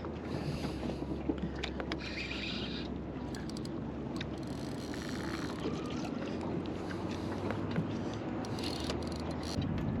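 Fishing reel being wound in with scattered clicks while a small mulloway is played on light tackle, over a steady low hum and wind on the microphone.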